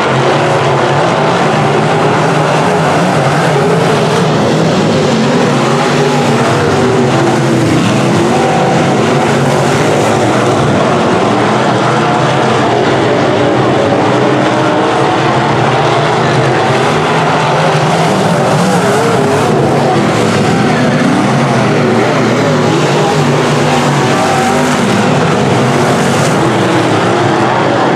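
A field of semi-late model dirt track race cars running laps at racing speed, their V8 engines loud and steady, several engine notes overlapping and wavering up and down in pitch as the cars work the turns.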